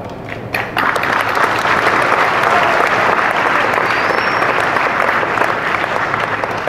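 Large audience applauding. A few scattered claps build quickly into dense, steady applause, which eases off near the end.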